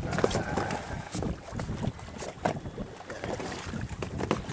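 Wind buffeting the microphone over water lapping at the side of a small fishing boat, with a few short sharp knocks scattered through.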